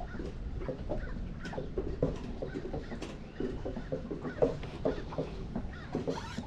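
Wind buffeting the microphone as a steady low rumble, with many short, irregular low knocks scattered through it.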